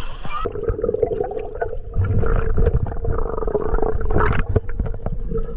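Muffled water gurgling and sloshing heard with the microphone underwater, with a steady hum and faint clicks; the sound turns dull about half a second in as the microphone goes under.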